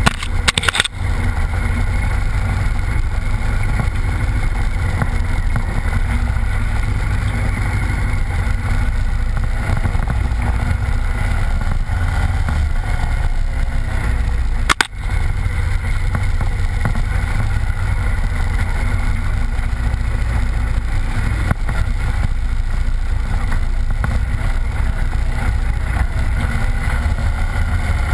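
Honda Varadero motorcycle running steadily on the move, a loud, even low rumble with rushing noise. It breaks off briefly twice, about half a second in and about halfway through.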